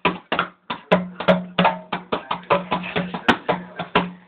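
Makina-style electronic dance music with a fast, steady beat of about three hits a second over a held low note.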